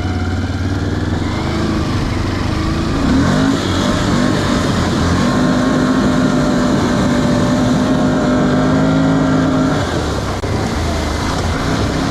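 Can-Am Outlander 570 ATV's V-twin engine under way: it revs up about three seconds in, holds steady at higher revs, then eases off near ten seconds.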